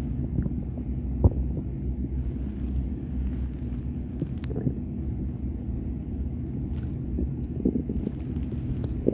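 A human stomach rumbling low and steadily, with a few faint gurgles and a sharp click a little over a second in.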